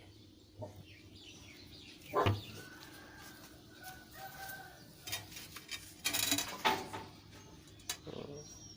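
A chicken clucking, with a sharp knock about two seconds in and bursts of rustling noise later on.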